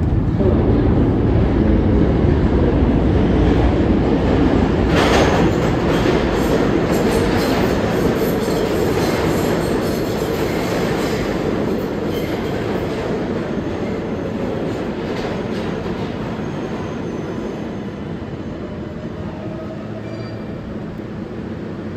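New York City subway train running alongside the platform in an underground station, steel wheels on the rails making a continuous rumble and clatter. There is a brief louder burst about five seconds in, and the noise slowly eases off over the second half.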